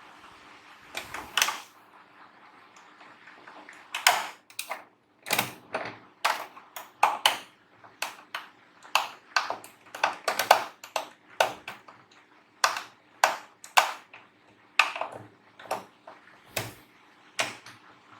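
Irregular sharp clicks and taps, about one or two a second and some in quick pairs, from small tools and parts being handled while working on a Singer electric sewing machine's light circuit. A faint steady hum sits beneath them.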